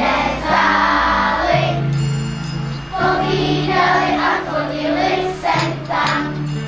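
Children's choir singing a Christmas song over a steady instrumental accompaniment of held low notes.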